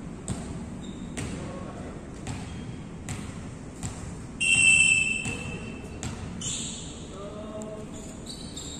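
Volleyballs being struck and bouncing on a wooden court in a large echoing sports hall, a sharp smack about every second. A loud short high squeal comes about halfway through and a shorter one later, with players' voices near the end.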